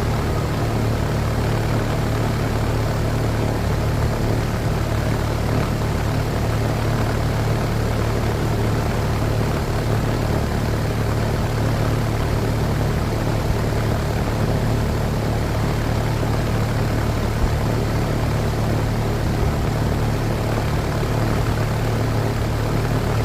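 Outdoor air-conditioning condenser unit running: a steady low hum under the even rush of its fan, which turns on a freshly installed replacement motor.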